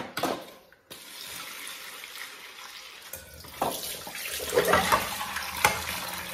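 Kitchen tap running into a stainless steel sink while dishes are rinsed under it, with several clinks and knocks of plates and a cup against each other and the sink in the second half.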